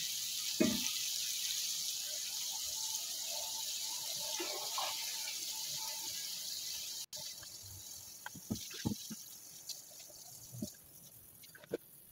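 Water at a rolling boil in a cooking pot with fried onions and whole spices, a steady bubbling hiss. About seven seconds in it cuts off abruptly, and a few light knocks follow as rice goes into the pot.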